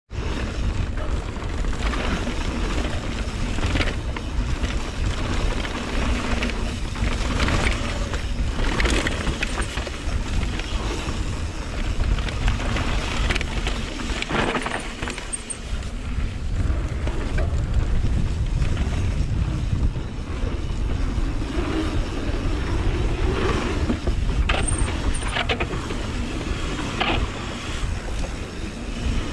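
Mountain bike descending a rough trail, heard through a GoPro action camera: a steady low rumble of wind and tyre noise, broken by frequent rattles and knocks as the bike runs over bumps.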